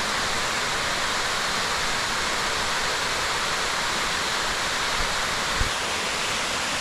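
A 20-foot waterfall on a creek, with a steady rush of falling water. Two brief low bumps come about five seconds in.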